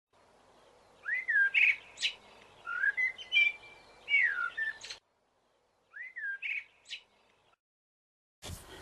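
Songbird singing: short whistled notes that slide up and down, and quick trills, in several phrases. After a cut to dead silence about five seconds in, the same phrase comes once more.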